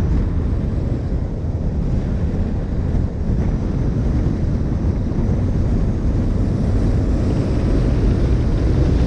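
Mini Cooper S Roadster driving at a steady speed: heavy wind buffeting on the microphone over a low road and engine rumble.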